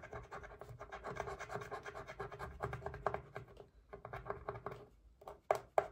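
A coin scratching the coating off a paper scratch-off savings challenge card in quick rubbing strokes, with a few louder, separate strokes near the end.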